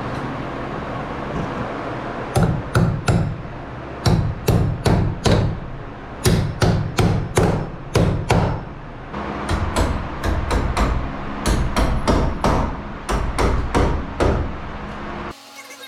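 A hammer striking repeatedly in quick runs of several blows, about two to three a second, with short pauses between runs, over a steady background hum.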